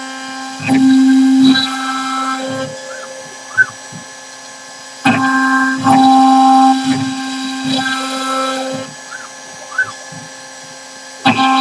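CNC router spindle running as its bit cuts into a square wooden blank turned on a rotary fourth axis. The cut gets loud in passes about a second long, near the start, around the middle and near the end, with quieter running between them and a few brief rising-and-falling whines as the machine moves between cuts.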